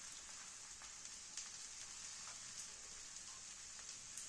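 Chicken-mince and rice-flour batter sizzling faintly on a hot iron tawa: a steady high hiss with a few soft crackles.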